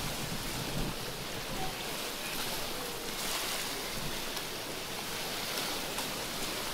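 Small sea waves washing against the rocky shore: a steady, even hiss with no horn or engine standing out.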